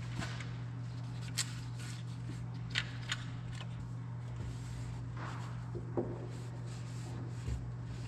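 A handful of light clicks and knocks from hands working inside a Bobcat S570 skid steer's air filter housing, wiping it clean, over a steady low hum.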